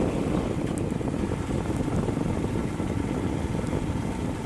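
Steady rushing rumble of a motorcycle ride on a wet road: wind buffeting the microphone over the engine and the tyres.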